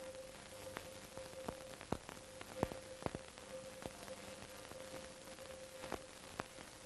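Steady hiss with irregular clicks and pops and a thin steady tone underneath: the surface noise of a silent film's soundtrack, with no recorded sound of its own.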